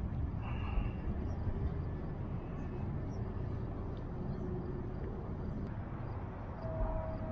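Outdoor lakeside ambience: a steady low rumble, with faint high chirps. A steady siren-like tone with overtones comes in near the end.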